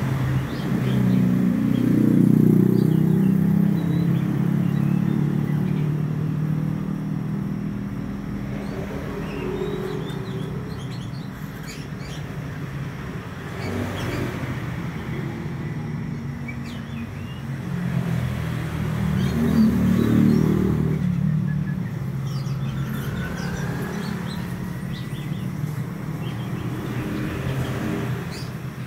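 Motor vehicles passing, their engines swelling loudest about two seconds in and again about twenty seconds in. Short, scattered chirps of a young male oriental magpie-robin sound over the traffic.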